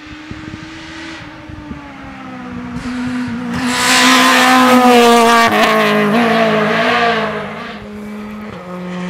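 Rally car engine at high revs, approaching and passing at speed, loudest about four to five seconds in. The engine note falls in several steps as it goes through the bend, then drops back.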